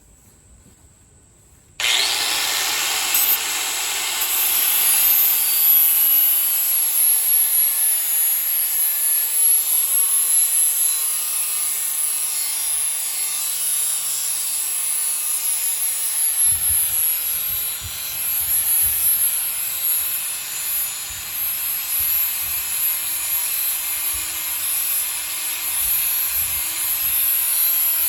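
DeWalt electric sander switched on about two seconds in and running steadily with a high whine, sanding the edge of a steel machete blade to sharpen it. From about halfway, uneven low knocks join the grinding as the blade is worked against the sander.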